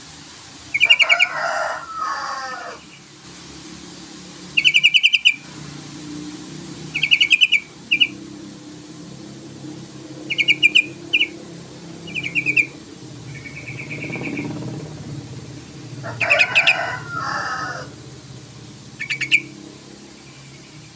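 Yellow-vented bulbul (trucukan) calling: short, fast-pulsed rattling bursts repeated every second or two. Twice a longer, lower chattering phrase joins in, about a second in and again near the end.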